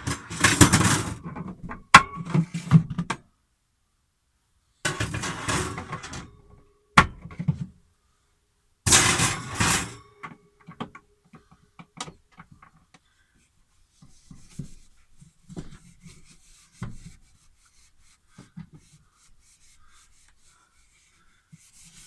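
Bursts of rubbing and scraping inside a small fridge compartment, with a few sharp knocks, as ice is worked off the cooling element and the inside is cleaned. After about ten seconds only faint scattered clicks and taps remain.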